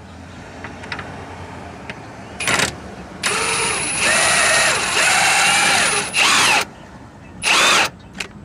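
A power tool's motor whirring in four bursts while driving fasteners: a short burst, then a long run of about three seconds whose pitch dips and shifts under load, then two more short bursts.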